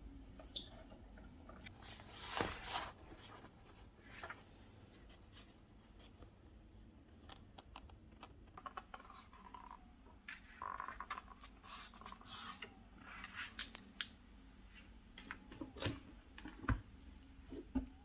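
Small handling sounds close to the microphone: scattered light clicks and taps, with a brief scraping swish about two seconds in and a few rustling scrapes in the middle.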